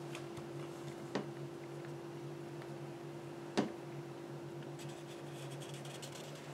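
Faint scratching of a felt-tip marker tracing around a hand on paper, with two short knocks, the second, about three and a half seconds in, the louder, over a steady low hum.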